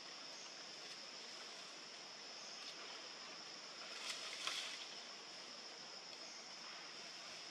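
Faint, steady outdoor background: an even hiss with a constant high-pitched drone, broken by a brief louder rustling burst about four seconds in.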